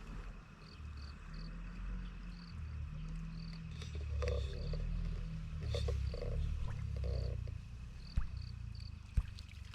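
Insects chirping in short, high, repeated notes over a steady low rumble, with two sharp clicks near the end.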